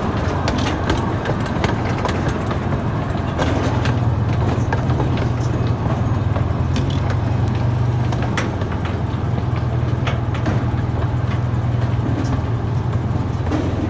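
Miniature zoo train running slowly into its station: a steady low engine drone, with scattered clicks and rattles from the cars, heard from aboard an open car.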